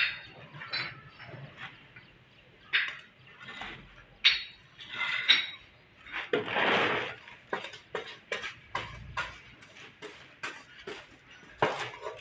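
Steel bricklaying trowel clinking, tapping and scraping against clay bricks and mortar as bricks are set in place: a run of sharp clinks and taps, with one longer scrape about halfway through.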